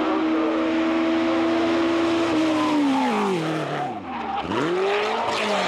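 Simca 1000 rally car's four-cylinder engine held at high revs, then falling away steeply about two seconds in as the driver lifts off, and climbing again near the end as it accelerates past.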